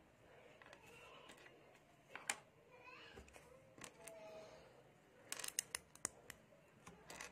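Small plastic LEGO pieces clicking and snapping as they are pressed together and handled by hand: one sharp click about two seconds in, a quick run of clicks around five to six seconds, and another just before the end.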